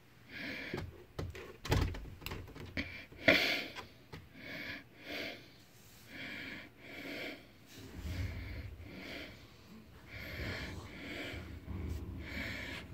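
Breathing close to the microphone, in noisy puffs about once a second, with scattered light clicks and taps. A low rumble of handling noise comes in about two thirds of the way through.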